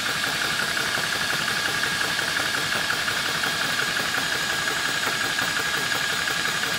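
Apolo 300-bar high-pressure air compressor running steadily under load, its pump pulsing at a fast even rate as it builds pressure to fill an air rifle to 300 bar.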